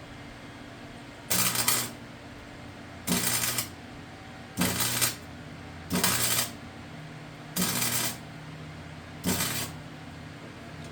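Wire-feed welder laying six short tack welds, each a crackling burst of about half a second with the wire-feed hum under it, roughly every one and a half seconds. The gun has just been taken apart and reassembled after a wire-feed jam, and it still welds.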